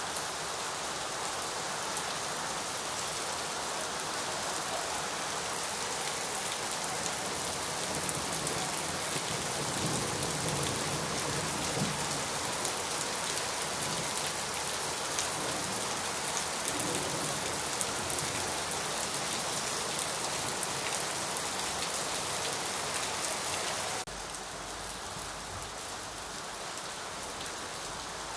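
Steady rain falling, a dense hiss with individual drops ticking on a surface. About 24 seconds in, the sound changes abruptly to a slightly quieter rain of a different character.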